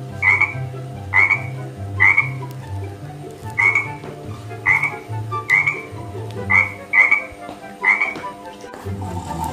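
Frog croaking: about nine short, loud croaks at uneven gaps of roughly a second, over a steady low background.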